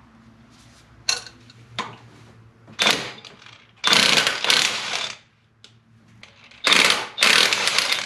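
Cordless impact wrench hammering on a tight camshaft sprocket bolt of a Toyota 1GR-FE V6, run on its highest setting (700 ft-lb). It goes in three bursts: a short one about three seconds in, then two longer ones of over a second each, the last running into the end.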